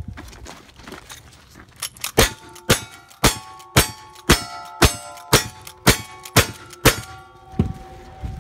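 A rifle fired ten times in quick, even succession, about two shots a second, each shot followed by the ringing of a struck steel target.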